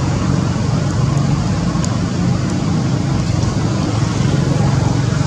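Steady low rumble of a running motor vehicle engine, with a hiss above it.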